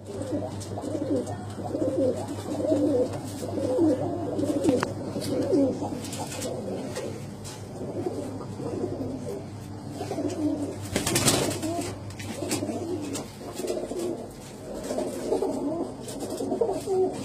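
Several Iraqi hybrid tippler pigeons cooing continuously in a small loft, their low calls overlapping and swelling in waves. There is a brief burst of noise about eleven seconds in.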